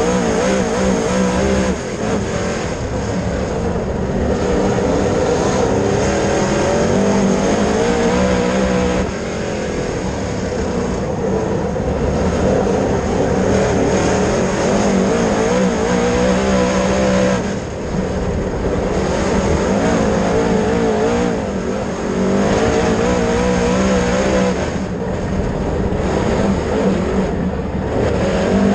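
Dirt late model race car's V8 engine running hard at racing speed. Its note wavers and dips briefly about every seven or eight seconds as the car eases off for the turns.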